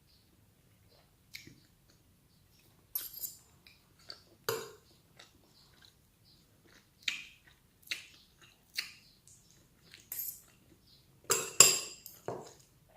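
Mukbang eating sounds: chewing, with utensils clinking against a plate or bowl in short separate clicks, the loudest cluster near the end.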